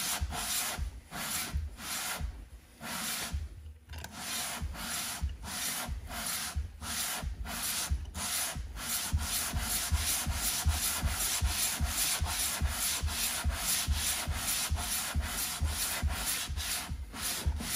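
Ford Ranger cylinder head slid back and forth on wet 220-grit wet-or-dry sandpaper laid on a sheet of glass: a rasping scrape at each stroke, about two to three strokes a second, with a brief break a few seconds in. The head's warped deck is being flattened.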